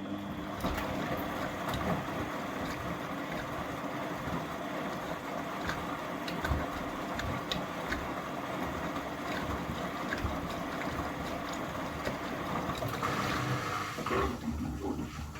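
Beko washing machine's drain pump running steadily, with water rushing through it as the drum is emptied after the rinse, and a few small clicks and knocks from the machine.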